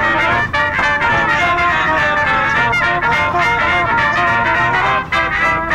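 Background music led by brass instruments playing a melody.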